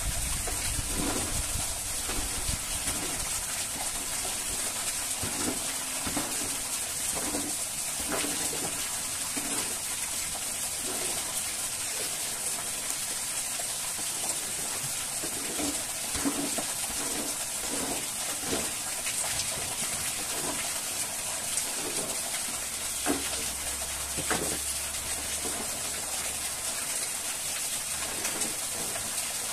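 Birds cooing in low, repeated calls over a steady hiss, with a few faint knocks.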